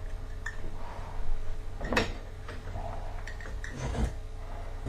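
Scattered knocks and clicks of hand work on drywall and tools, the sharpest about two seconds in, over a low steady hum.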